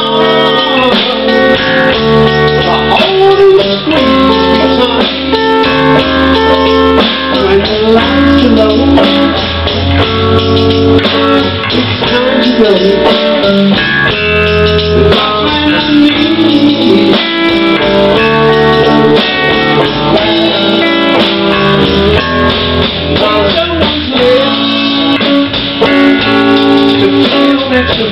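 Live band playing a slow blues: a gold-top Les Paul electric guitar, wired out of phase, plays lead lines with bent notes over electric bass and drum kit.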